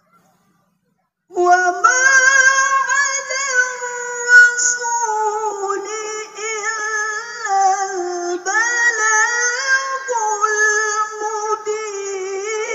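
A woman reciting the Qur'an in the melodic tilawah style, starting after about a second of silence and then holding long, high notes with wavering ornaments and slides between pitches.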